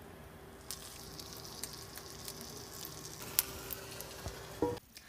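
A slice of meatloaf sizzling in hot fat in a cast iron skillet: a steady frying hiss with scattered sharp pops, growing louder about a second in.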